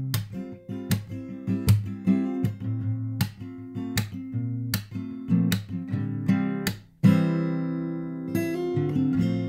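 Background music of strummed acoustic guitar with a steady rhythm of chords. About seven seconds in there is a brief gap, then a loud chord left to ring out, with a few lighter strums near the end.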